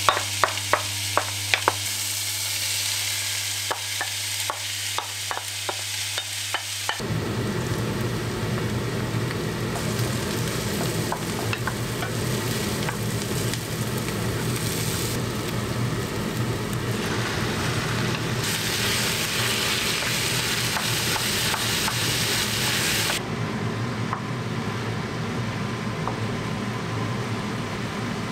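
Chopped onions sizzling as they fry in hot olive oil and clarified butter in a pan, stirred with a wooden spatula. There are a few sharp taps of the spatula at the start, then a steady frying hiss as the pan fills with more of the filling.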